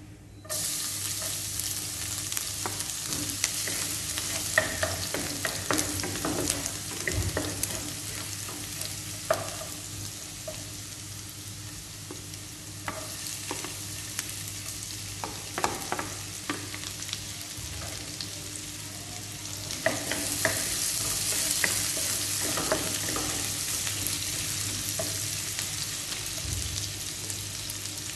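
Chopped garlic and ginger dropped into hot oil in a nonstick pan, sizzling with a hiss that starts suddenly about half a second in and swells again around twenty seconds in. A wooden spatula scrapes and taps against the pan as they are stirred.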